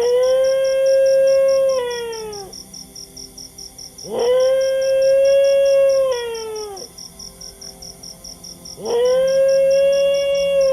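A dog howling three long howls, each sweeping up quickly, holding one steady pitch and falling away at the end. A fast, high chirping pulse, about four a second, runs steadily beneath them.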